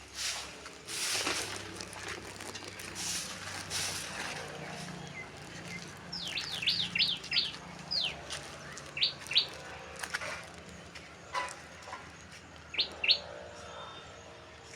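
A small bird chirping in short, sharp notes: a quick run of about half a dozen chirps about six seconds in, then pairs of chirps later. Before that, a few rough swishing scrapes about a second apart.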